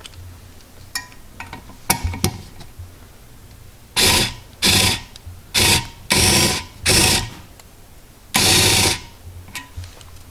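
Vessel rechargeable ball-grip screwdriver's small electric motor running in six short bursts of under a second each, starting about four seconds in. A few light clicks come first.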